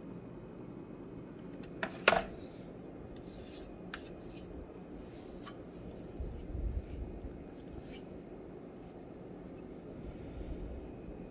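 Handling noise: soft rubbing over a steady low hum, with one sharp click about two seconds in, a few fainter clicks after it, and a brief low rumble about six seconds in.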